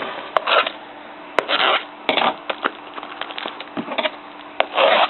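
A small cardboard card-pack box being opened and handled: irregular rustling and scraping with a few sharp taps and clicks.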